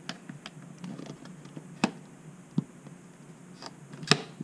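A hand cutter biting into a 3D-printed plastic body shell: scattered small clicks and creaks of the plastic, with two sharp cracks, one about two seconds in and one near the end.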